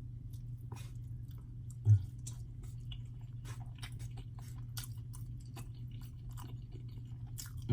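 Close-miked chewing of lasagna roll-ups: wet mouth clicks and smacks over a steady low hum. A loud, brief low thump comes about two seconds in.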